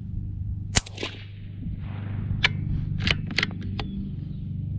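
A single shot from a CZ 457 Pro Varmint .22 LR bolt-action rifle firing bulk 36-grain ammunition: one sharp crack under a second in. It is followed by a run of lighter metallic clicks as the bolt is worked to eject the case and chamber the next round.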